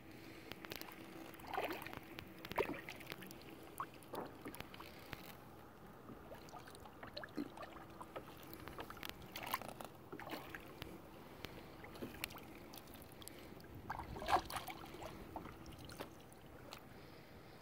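Kayak paddle strokes in calm lake water: quiet, irregular splashes and drips, the loudest about fourteen seconds in, over a faint steady hum.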